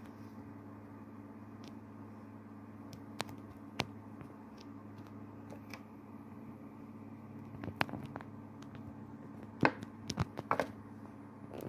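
Steady low hum with scattered faint clicks, and a few louder clicks and knocks near the end.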